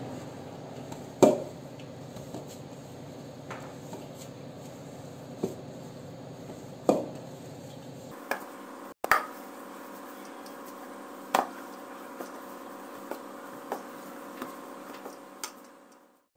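A hand kneads crumbled chhena against a steel plate, giving a few light irregular knocks and taps on the metal over a steady low hum.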